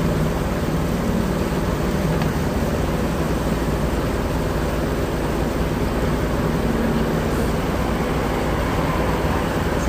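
Small boat's motor running steadily underway, a low even hum with rushing noise over it.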